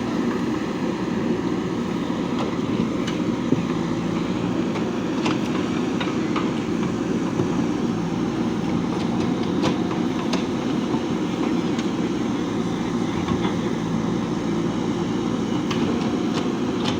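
Diesel engine of a JCB 3DX backhoe loader running steadily while it works, with a few faint clicks and clanks from the machine.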